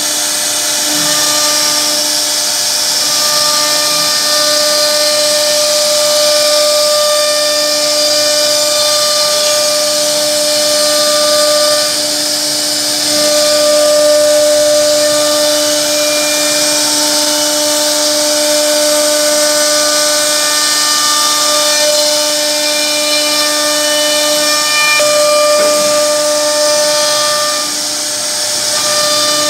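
CNC router spindle running as its bit cuts grooves into a wooden board: a steady whine with a strong hiss from the cutting, its higher tones shifting as the cut goes.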